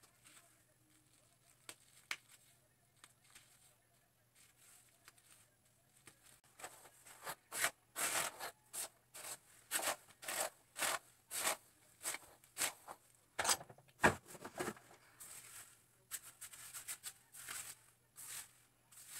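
Hands working wet hair against a plastic highlighting cap: a run of short, irregular scratchy sounds, one or two a second, starting about a third of the way in and faint before that.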